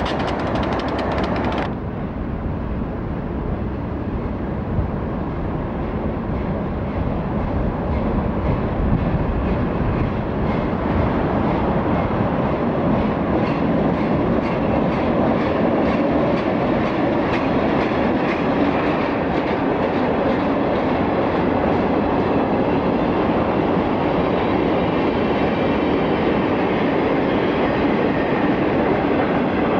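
Freight train of open hopper cars rolling past at close range: a steady rumble of steel wheels on rail, with clicking over the rail joints. The first two seconds belong to a different shot and cut off abruptly.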